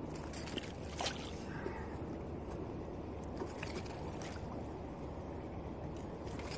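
Shallow water sloshing and trickling, with a few short clicks and small splashes.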